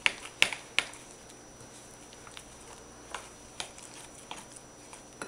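Metal spoon stirring a thick, wet chili-powder seasoning paste in a bowl: soft squishy mixing, with sharp clicks of the spoon against the bowl. The three loudest clicks come in the first second, and a few softer ones follow.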